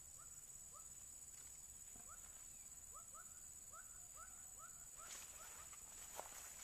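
Faint natural ambience: a steady high insect drone with a small animal's short chirping call repeated about twice a second, stopping about five seconds in.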